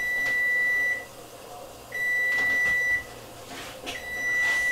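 Kitchen appliance timer beeping: three long, steady, high-pitched beeps of about a second each, about two seconds apart.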